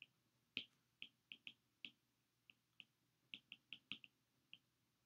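Faint, irregular clicks of a stylus tip tapping on a tablet's glass screen during handwriting, about fourteen light taps.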